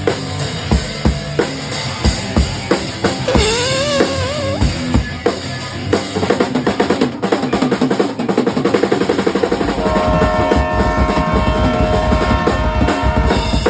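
A rock band playing loud at a sound check: drum kit hits with kick and snare, a note bending up and down a few seconds in, and fast, dense drumming from about halfway. Near the end a held, sustained chord rings over the drums.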